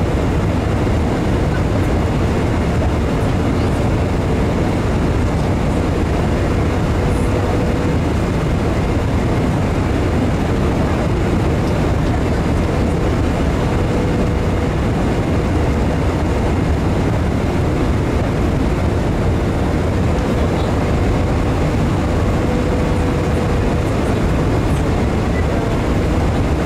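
Steady roar of airflow and engines heard inside the cabin of a Boeing 747-400 airliner, even and unbroken, with a faint hum that comes and goes.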